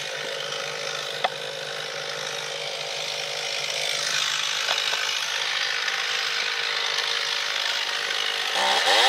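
Two-stroke chainsaw idling steadily, then throttled up near the end with a quick rising whine that settles into a loud, high-revving run as the bar goes into the cut at the base of a silver maple trunk.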